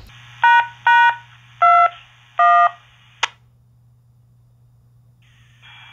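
Four short electronic beeps of differing pitch from a ham radio setup, followed by a single sharp click about three seconds in, over a faint low hum.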